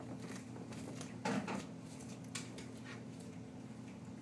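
A turtle biting and chewing its food: a few short, crisp crunches, the loudest about a second in and another sharp one a second later, over a steady low hum.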